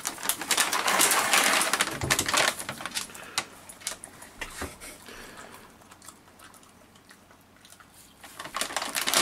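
A dog rummaging with its muzzle in a foil-lined plastic snack bag, the bag crinkling and rustling with sharp crackly ticks. Loud for the first few seconds, quieter in the middle, loud again near the end.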